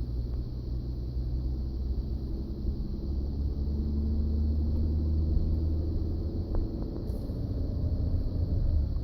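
Ford F-150 pickup truck in motion: a steady low rumble, with a faint hum in the middle seconds and a couple of light clicks near the end.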